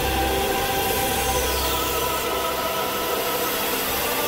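Band saw running and cutting through a wooden block, a steady motor and blade noise with no pauses.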